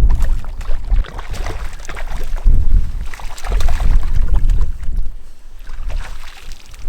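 Wind buffeting the microphone in irregular gusts, with scattered crackling over it.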